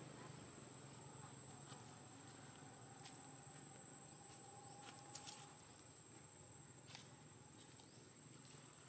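Near silence: faint outdoor ambience with a steady high-pitched tone and a few faint scattered clicks.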